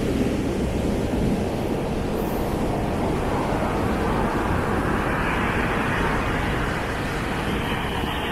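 Ocean surf breaking and washing up a sandy beach, a steady rushing noise that swells a little about halfway through, with wind rumbling on the microphone.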